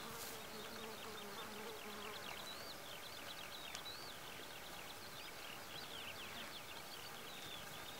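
Faint outdoor ambience: an insect buzzing steadily for about the first two seconds, over many quick, high chirps that go on throughout.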